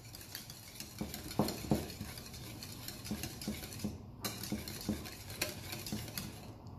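Wire whisk beating yogurt smooth in a ceramic bowl by hand, its wires scraping and clicking against the bowl about three strokes a second, with a brief pause about four seconds in.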